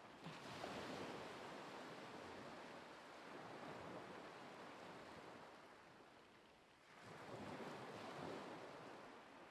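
Faint ocean waves washing in, one swell just after the start and another about seven seconds in.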